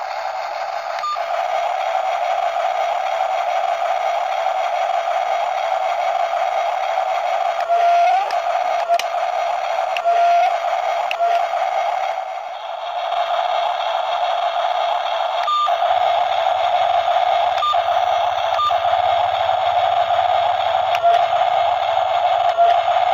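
Small electric motors of a remote-control toy excavator and dump truck whining steadily. Brief clicks and short pitch blips come now and then as the controls change, and a low hum joins about two thirds of the way through.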